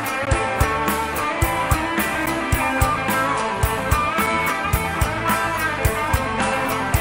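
Live rock band playing an instrumental passage: electric guitar over a drum kit keeping a steady beat, with no singing.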